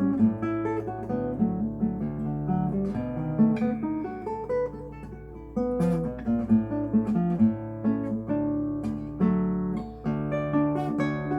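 Solo classical guitar being played, a plucked melody over lower bass notes. The playing eases briefly about halfway through, then comes back in with a loud chord.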